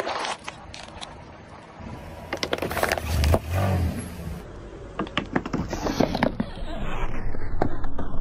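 Plastic soda bottles cracking and crunching as a car tyre rolls over them, in two bouts of sharp crackles; the first is loudest about three seconds in.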